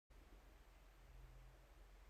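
Near silence: faint room tone with a low steady hum, cutting in abruptly just after the start out of complete digital silence.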